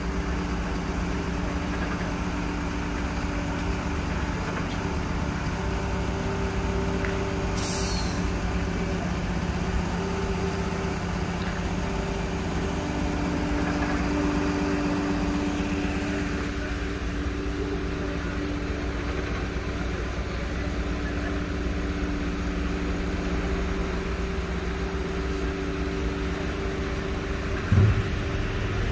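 Heavy-haul truck diesel engines running with a steady low drone as an oversize-load convoy moves slowly past. A short hiss of air about eight seconds in, and a loud thump near the end.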